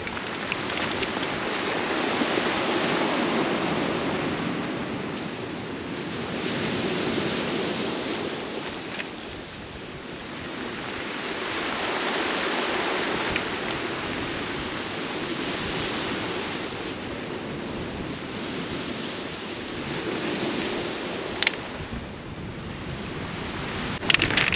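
Sea waves breaking and washing over a shingle beach, the surf swelling and fading every four to five seconds.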